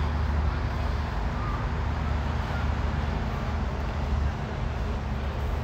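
Steady low mechanical hum under outdoor background noise.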